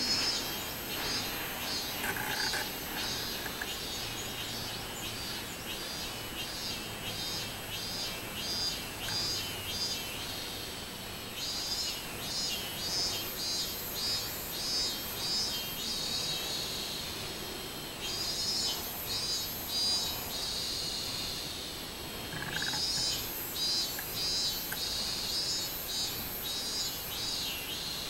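Robust cicadas (minmin-zemi, Hyalessa maculaticollis) singing in a tree. The song is a high-pitched pulsing 'meen-meen-meen' of about two to three pulses a second, in bouts with short pauses between them.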